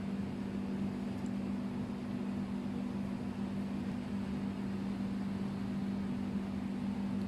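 A machine humming steadily, with a constant low drone and an even hiss over it.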